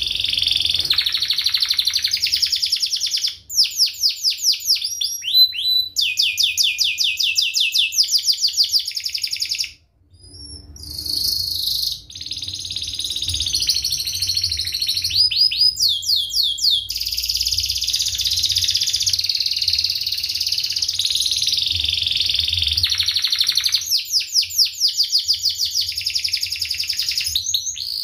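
Domestic canary singing a long, loud song of fast chirps and tight rolling trills, with a short break about ten seconds in.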